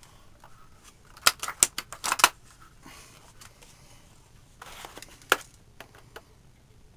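Bolt of a WELL L96 spring-powered airsoft sniper rifle being cycled between shots: a cluster of sharp clicks and rattles about a second in, then a short scrape and a single sharp click around five seconds in.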